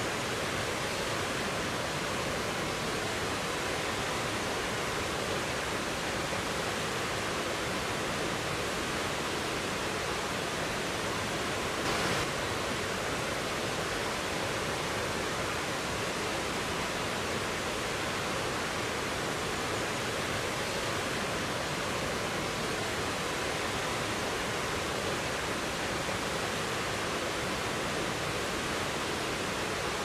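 Waterfall and shallow river rapids rushing steadily, an even wash of falling and churning water, with a brief slight surge near the middle.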